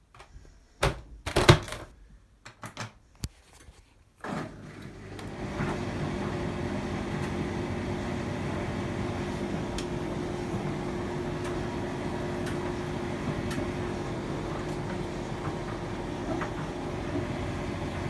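A few sharp knocks and clicks, then a Hotpoint tumble dryer starting up about four seconds in: its motor and drum build to a steady running hum with a low drone that holds.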